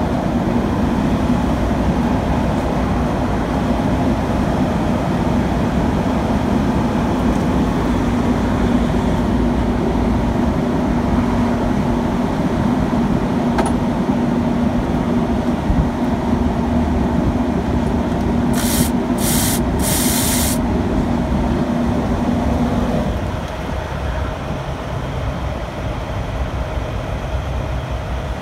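Heavy-truck diesel engine, the Cummins in a Kenworth T680, idling with a steady rumble and a steady drone that cuts out about five seconds before the end, leaving a quieter running. Three short hisses come in quick succession a little past the middle.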